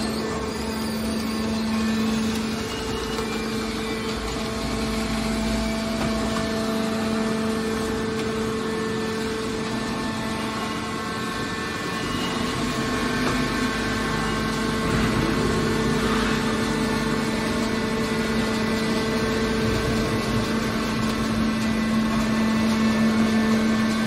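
Hydraulic scrap metal baler's power unit, an electric motor driving the hydraulic pump, running with a steady, even hum.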